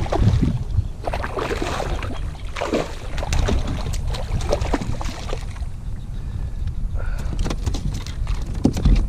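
Water sloshing and splashing against a kayak hull under way, with a steady low rumble of wind on the microphone.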